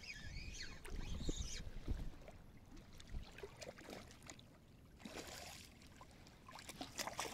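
Faint water splashing and trickling in the shallows at the river's edge as a hooked fish is brought in, with a few light clicks and knocks.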